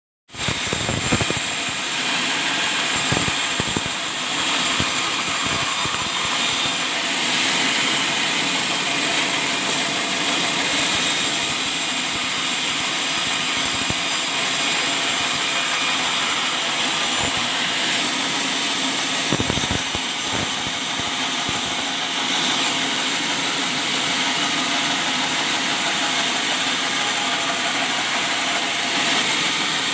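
Engine-driven sawmill running steadily as it saws a mahogany log into a beam.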